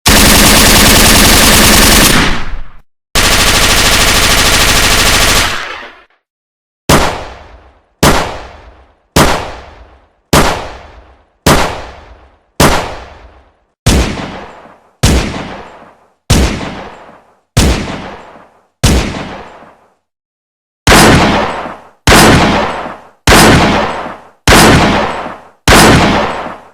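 Gunshot sound effects: two long bursts of automatic machine-gun fire, each about two and a half seconds. These are followed by a steady string of single shots, about one a second, each ringing out and fading. After a brief pause there is a last run of five louder shots.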